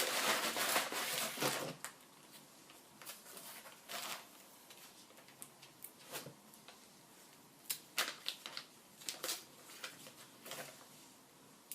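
Packaging being handled and opened to unbox a replacement laptop LCD panel: rustling and crinkling, loudest in the first second or two, then scattered light clicks and taps.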